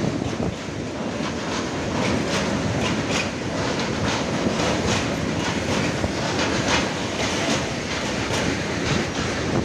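Freight train of tank wagons rolling past: a steady rumble of steel wheels on rail, with clicks from the wheelsets, two or three a second.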